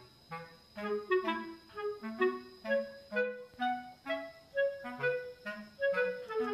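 Background music: a light, bouncy instrumental melody of short notes over a simple bass line.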